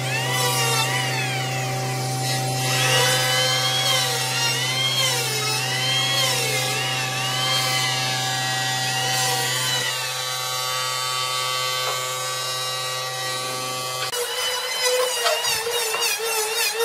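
Handheld electric planer running and shaving a wooden board, its whine dipping and recovering over and over as the blades bite on each pass. About 14 s in, the sound changes to another stretch of planing on a different plank.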